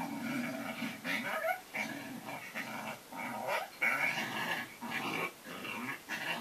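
Coyote calls played back through a device's speaker: a continuous run of overlapping calls that waver and glide in pitch, broken by many short pauses.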